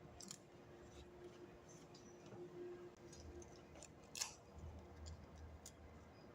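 Near silence with a faint steady hum and a few faint, sharp clicks, the sharpest about four seconds in.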